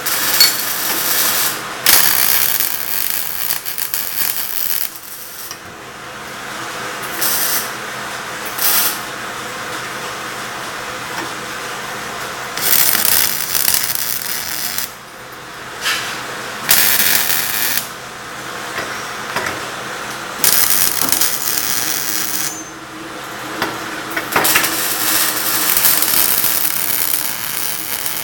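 Electric arc welding on scrap steel: the arc crackles and hisses in a run of welds a few seconds long, broken by short pauses.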